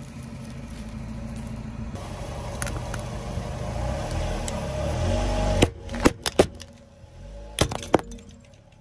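A car creeping forward on asphalt, its low rumble growing louder for about five seconds. Then a plastic jar of glitter cracks apart under the tyre in a quick run of sharp cracks, with two more cracks about a second and a half later.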